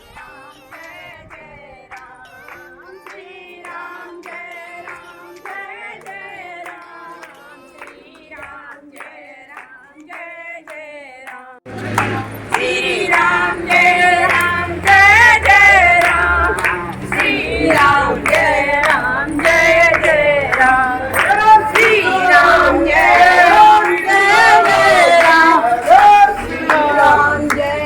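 Devotional singing. For about the first twelve seconds it is a softer song, then it cuts suddenly to loud group singing with rhythmic hand-clapping.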